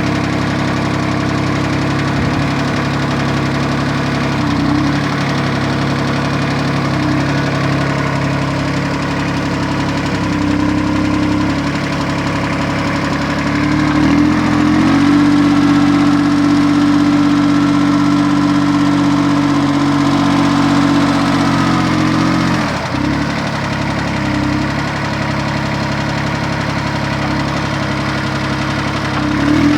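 VST 224 compact tractor's diesel engine running steadily, picking up speed and getting louder about halfway through, then dropping back to its earlier speed with a brief dip a few seconds later.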